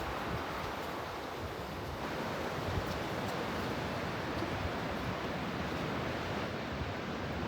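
Strong storm wind rushing steadily through the surrounding woods, from a severe thunderstorm under a tornado warning.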